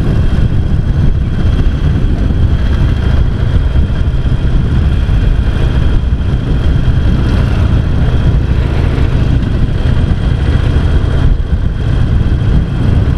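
Harley-Davidson XL883C Sportster's 883 cc air-cooled V-twin running steadily as the bike is ridden along at an even pace, its deep engine pulse dominating.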